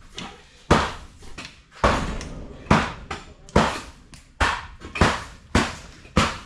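A series of heavy, sharp strikes, roughly one a second, each followed by a brief ringing tail.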